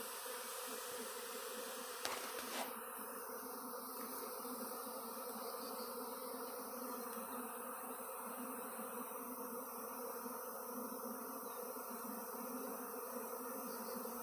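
A swarm of honey bees in flight: thousands of bees making a steady, dense buzzing hum. Two brief clicks sound about two seconds in.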